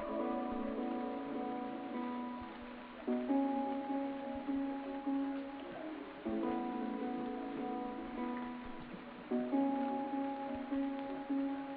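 Soft background music: held chords that change about every three seconds.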